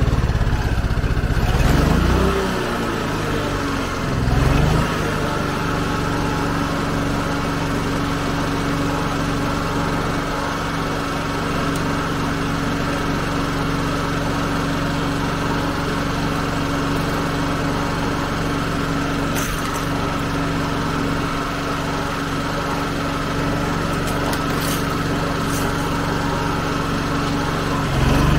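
Yamaha EF2800iSE inverter generator engine running. Its speed rises and falls in the first few seconds, then settles to a steady, even hum.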